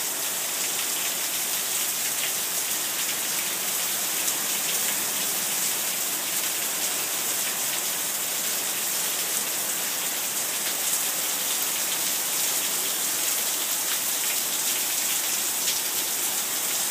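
Heavy rain coming straight down onto a wet concrete patio and lawn: a steady, even hiss of falling rain.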